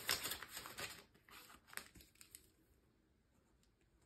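Crinkling and rustling of cash envelopes and banknotes being handled, in small quick rustles that stop about two and a half seconds in.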